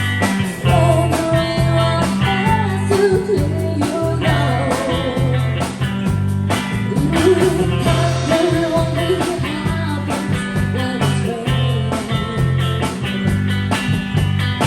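Rock song playing: guitar, a steady repeating bass line and drums, with a sung melody over them.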